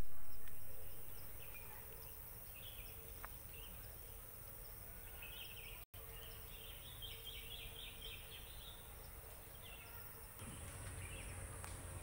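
Forest ambience: a rush of noise at the start that fades over about a second and a half, then a low steady rumble with scattered faint bird chirps. A quick run of repeated high chirps comes between about six and nine seconds in.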